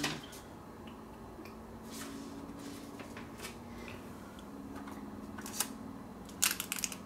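A faint low steady hum with a few scattered soft clicks, then near the end a quick run of sharp crinkles and clicks as hands handle the clear plastic blister tray and its film holding a diecast model airliner.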